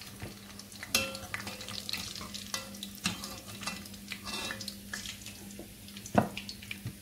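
Fish pieces crackling and sizzling as they deep-fry in hot oil, with a slotted metal spoon scraping and knocking against the pot while the fried pieces are lifted out; the sharpest knock comes about six seconds in. A steady low hum runs underneath.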